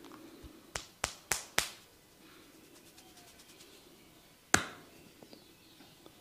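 Sharp percussive hand strikes from a barber's head massage: four quick hits in about a second, then a single louder one a few seconds later.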